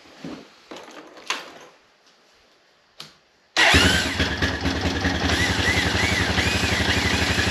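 A click, then a Honda Foreman 450's single-cylinder four-stroke engine is turned over by its freshly rebuilt electric starter about three and a half seconds in, catches at once, and settles into a steady, rhythmic idle. The starter is working again.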